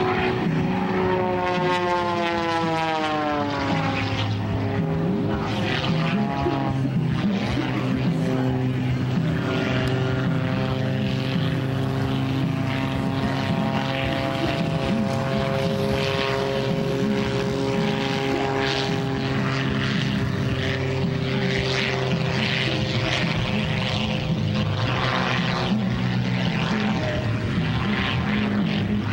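Pitts S-2S aerobatic biplane's six-cylinder Lycoming engine and propeller, heard from the ground while it flies aerobatics. The pitch drops sharply over the first few seconds and again a little later, then holds a steady note with small rises and falls.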